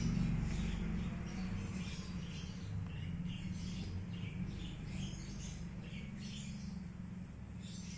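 Small birds chirping in quick, irregular short calls over a steady low hum.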